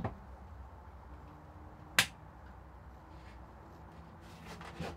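Plunge router being adjusted for cutting depth while switched off: one sharp plastic-and-metal click about two seconds in, then a few softer clicks near the end, over a low steady hum.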